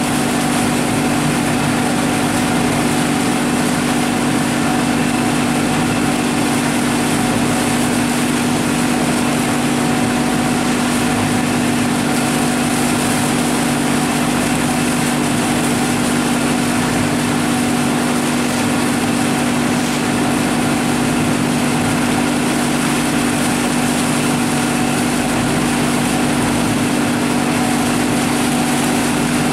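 Lobster boat's engine running steadily under way: a constant drone with a strong low hum.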